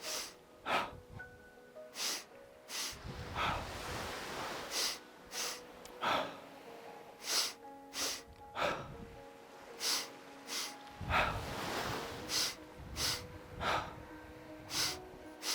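Forceful rhythmic breathing in a double-breath exercise: two quick, sharp inhales followed by an exhale let fall, repeating about every two and a half seconds.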